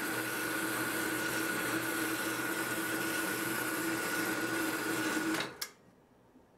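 Harbor Freight 4x6 horizontal metal bandsaw running and cutting through steel, a steady mechanical noise with a constant whine and a lower hum. It stops abruptly about five and a half seconds in.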